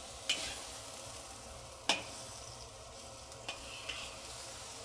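Chicken and vegetables sizzling as they stir-fry in sauce in a hot wok. A few sharp clacks of the spatula against the wok cut through, the loudest about two seconds in.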